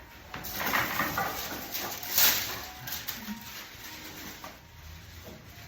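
Rustling and shuffling of a person rolling over onto their side on a padded treatment table. The sound is loudest about two seconds in and settles after about three seconds.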